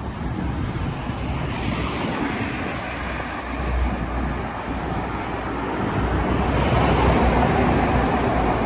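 Road traffic noise heard while cycling, with wind rumbling on the microphone; a vehicle passes, the noise swelling and getting brighter about six seconds in.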